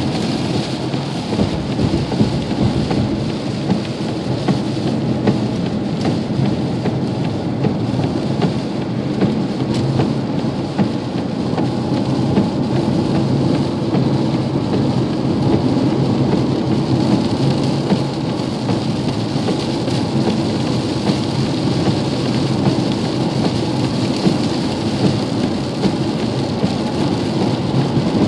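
Heavy rain pounding on a pickup truck's roof and windshield, heard from inside the cab as a loud, steady rush with many small sharp taps, over the low rumble of tyres on the wet highway.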